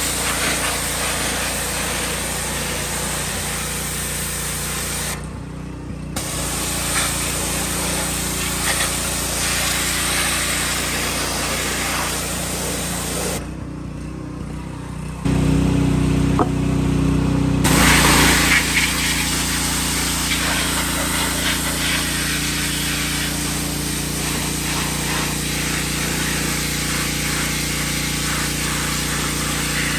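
Pressure washer spraying a steady hissing jet of water over its running motor while cleaning an engine bay. The spray cuts out briefly twice, about five seconds in and again around thirteen seconds in, and the motor keeps running.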